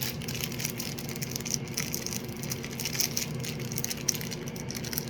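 Irregular crackling and crunching of a packaged apple cinnamon fruit-and-grain cereal bar being crushed up by hand, over a steady low hum.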